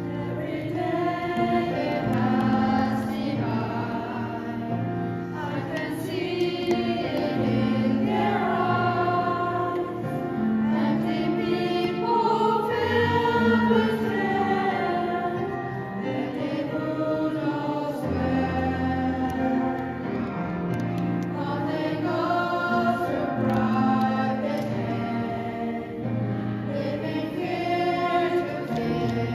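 Church choir singing a gospel song in harmony.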